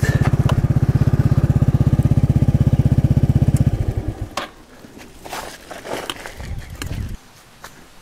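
Scooter engine idling with a steady, even pulse, then switched off a little before four seconds in. A few light clicks and knocks follow.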